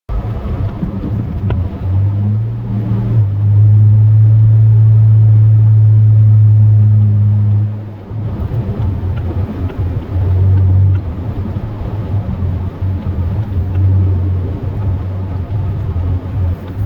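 Chevrolet plow truck's 8.1-litre Vortec big-block V8 running: a loud, steady low drone from about three seconds in, which turns uneven and rises and falls from about eight seconds in.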